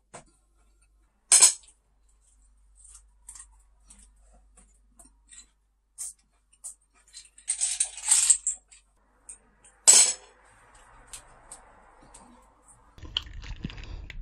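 Sharp clinks of cutlery and a glass against plates and the tabletop during a meal, with a sip from the glass around the middle. Near the end, a low rumble of handling noise as the camera is moved.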